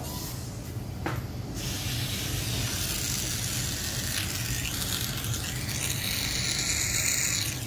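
Clinical suction unit hissing: a steady hiss starts about a second and a half in and cuts off near the end, over a low steady hum. The suction is being used to clear sticky middle-ear fluid.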